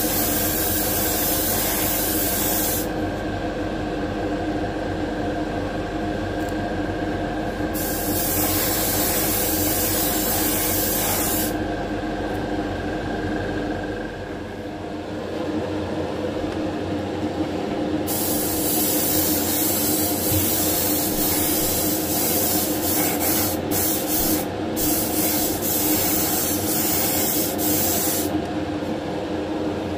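Gravity-feed paint spray gun hissing in three bursts, a short one at the start, another about eight seconds in, and a long one from about 18 s almost to the end, as automotive 2K paint is sprayed. A steady hum runs underneath.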